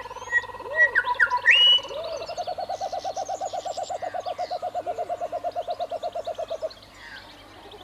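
Animal calls: a few sharp bird chirps and whistles in the first two seconds, which are the loudest sounds. A low, rapid trill of about ten pulses a second starts about two seconds in and stops suddenly near the end, with a few low hooting calls under it.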